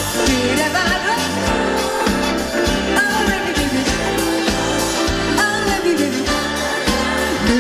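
Korean pop ballad-style dance-pop song performed live: female vocals over a backing track with a steady beat.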